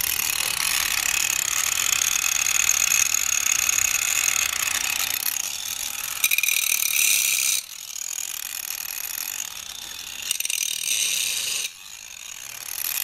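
DeWalt angle grinder running on power from solar panels, its motor giving a steady high whine. The whine drops sharply about seven and a half seconds in and again near the end, picking up again each time.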